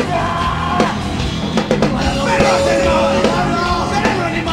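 Live hard rock band playing loud, with drums and yelled vocals.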